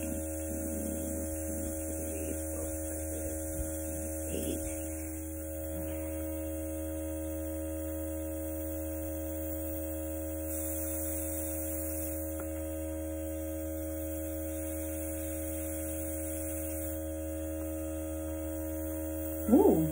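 Luminess makeup airbrush compressor running with a steady electric hum, air hissing from the airbrush. The hiss grows louder about ten seconds in and stays up for several seconds.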